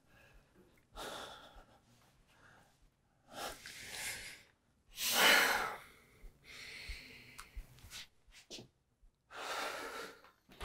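People taking several slow, deep breaths in and out, the loudest about five seconds in.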